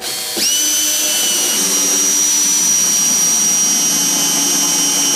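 Makita cordless drill-driver driving a SPAX partial-thread wood screw through a plywood board into a timber stud. The motor spins up within the first half second, then runs at a steady high whine.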